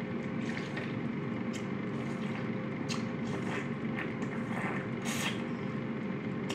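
A person drinking cola from a can, with a few soft swallowing sounds over a steady low room hum.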